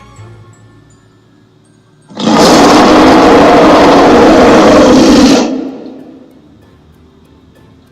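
A loud monster roar sound effect. It starts abruptly about two seconds in, lasts about three seconds, then fades out, after faint music.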